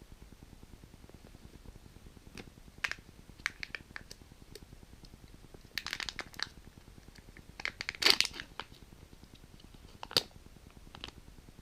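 Kinder Joy egg being unwrapped and opened: crinkling and tearing of the foil wrapper and sharp plastic clicks, in scattered short bursts with the loudest crackle about eight seconds in and a sharp click about two seconds later.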